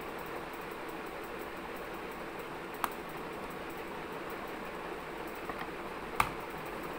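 Steady room hiss with two sharp taps of cardboard craft pieces being handled on a tabletop. There is a small tap about three seconds in and a louder knock just after six seconds, as the cardboard tube is picked up.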